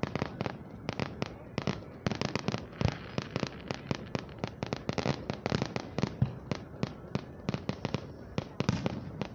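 Fireworks display: a rapid, irregular run of sharp bangs and crackles as shells burst, several a second.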